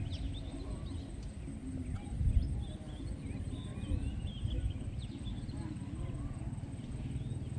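Several birds chirping with short notes that glide up and down, over a low rumble, with a louder bump about two seconds in.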